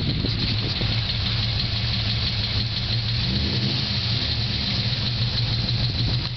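Holden VZ Senator's V8 idling steadily with a lifter tick. The tick comes from hydraulic lifters not getting enough oil because low oil pressure from badly worn cam bearings.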